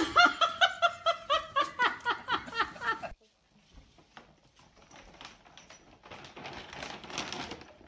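A person laughing in rapid, repeated bursts, cut off suddenly about three seconds in. Then faint plastic rustling, growing near the end, as a dog pushes its head into a plastic dog-food bag.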